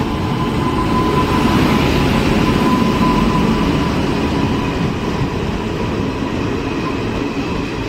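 Train running on the rails: a steady, heavy rumble with a thin, steady whine above it.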